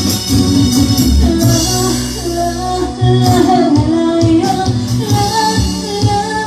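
Ballad music with band backing, a pulsing beat and a held melody line between sung phrases.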